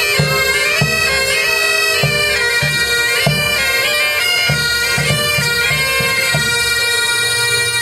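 Great Highland bagpipes playing a tune over their steady drones, with a bass drum beating time. The drum beats stop about two-thirds of the way through and the pipes hold a long final note.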